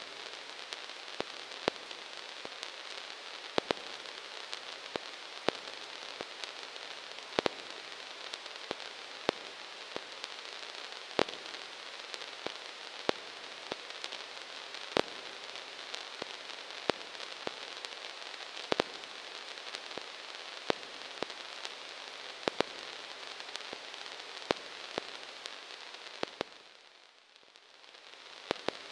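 Surface noise of an old recording: a steady hiss with scattered sharp clicks and pops about once or twice a second, over a faint low hum. The hiss drops away briefly near the end, then returns.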